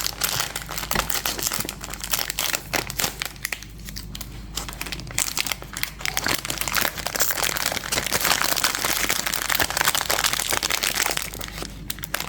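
Crinkling and rustling of packaging handled by hand as a blind box and its small plastic bag are opened, busiest from about seven to eleven seconds in.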